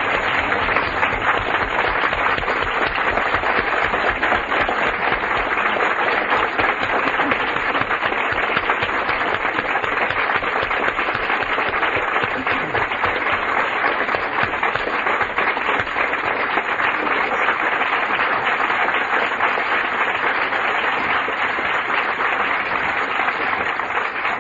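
A large seated audience applauding: dense, steady clapping that keeps going without letting up.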